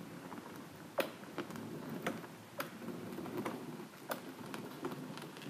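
Thin river ice cracking and ticking in sharp, irregular clicks, over a low crunching rumble, as a canoe breaks through a frozen river.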